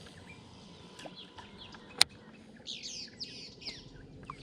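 Wild birds chirping, with a quick run of rapid chirps about three seconds in. A single sharp click sounds a second before.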